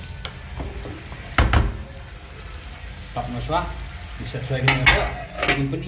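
A wooden spatula stirs a simmering curry in an aluminium kadai over a gas flame, with one loud knock against the pan about a second and a half in. Near the end a metal lid clatters several times as it is set onto the pan.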